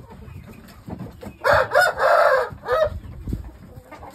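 A rooster crowing once, starting about one and a half seconds in and lasting just over a second.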